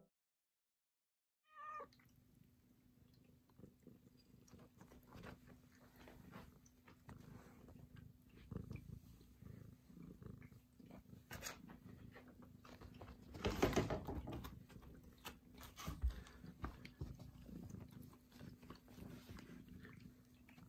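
A six-month-old tabby-and-white cat close to the microphone: a short meow about two seconds in, then faint soft noises from the cat. A louder stretch of about a second comes about two-thirds of the way through.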